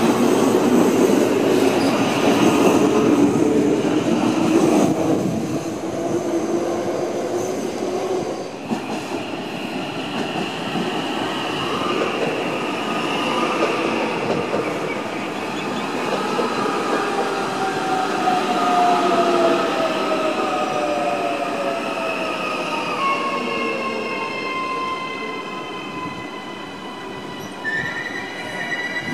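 Auckland AM class electric multiple unit moving along the platform: steady rolling wheel-on-rail noise, loudest in the first few seconds, with whining electric tones that fall in pitch midway and hold steady near the end.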